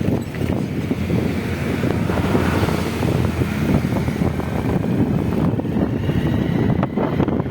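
Wind buffeting the microphone outdoors, a loud, uneven rushing noise heaviest in the low range.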